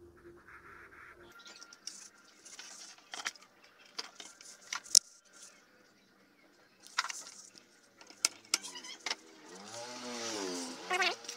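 Sharp clicks and knocks of a CRT TV's circuit board and tools being handled on a workbench. Near the end a passing motor vehicle is heard, its engine note rising and then falling.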